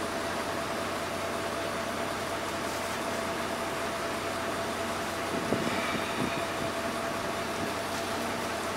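Steady mechanical hum of idling vehicles and machinery, with a faint constant tone running through it. A brief louder sound comes about five and a half seconds in.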